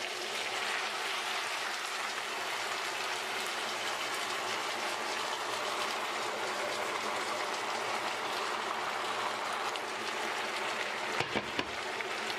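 Steady sizzling of vegetables frying in olive oil in a hot cast-iron pot, with a few short knocks near the end.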